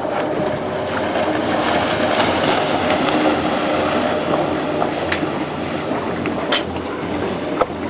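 Motorboat engine running steadily, with wind and water noise on the boat, and a couple of short sharp knocks near the end.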